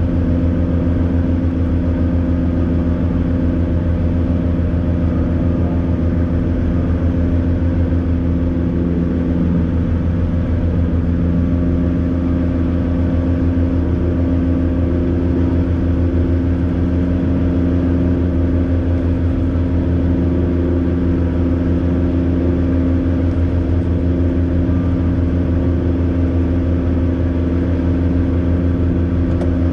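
Piston engines and propellers of a light twin-engine airplane, heard inside the cabin as a loud, steady drone that holds the same pitch throughout.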